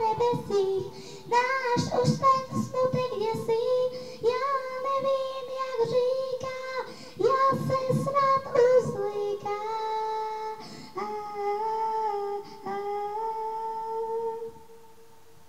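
A girl singing into a handheld microphone over backing music, holding long sustained notes in the second half; the sound drops away about a second before the end.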